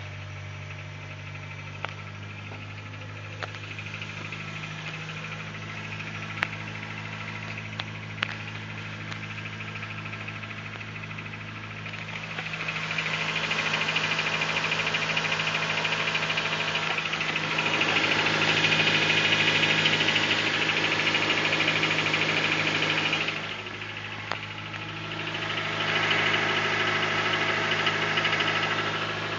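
Honda Civic D16 inline-four idling on a cold start with a knocking rattle, which the owner takes for piston slap. About twelve seconds in, the sound grows much louder and brighter. It drops back briefly later on, then comes up again near the end.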